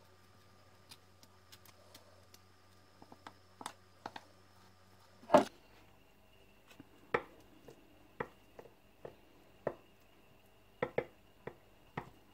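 A plastic spatula spreading cream over ladyfingers in a dish: scattered light clicks and taps of the spatula against the dish, the loudest about five seconds in, over a faint steady hum.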